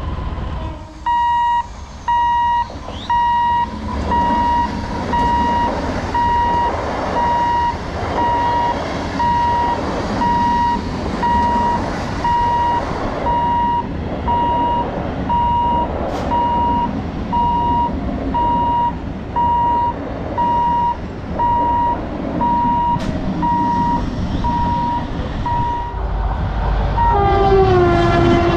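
An electronic level-crossing warning beeper sounds a steady single-pitched beep over and over, about once a second, over the rumble of an electric local train running past. Near the end the beeping stops and an electric locomotive's horn blows, falling in pitch as the locomotive passes.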